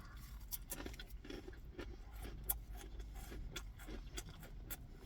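Close-miked chewing of food, with irregular wet mouth clicks and smacks a few times a second.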